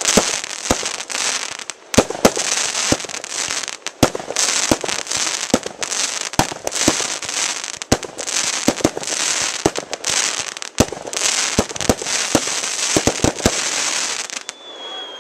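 Fireworks going off: a dense run of sharp bangs over a continuous crackling hiss from gold crackle-star bursts. It stops abruptly just before the end.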